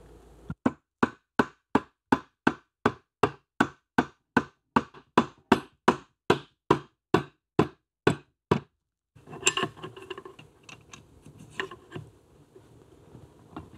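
A hammer striking a steel tube drift in a steady run of about two dozen blows, about three a second, to drive the ignition rotor onto the motorcycle engine's crankshaft. The blows stop about nine seconds in, and quieter clinks of metal parts being handled follow.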